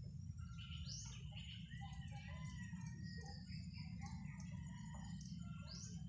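Birds chirping in the background: scattered short calls and two quick rising whistles, about a second in and near the end, over a steady low rumble.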